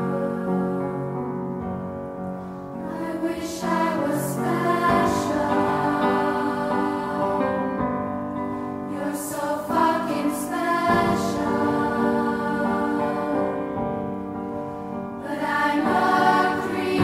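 Music: a choir singing sustained chords that swell and ebb, with stronger swells about four seconds in, around nine seconds, and near the end.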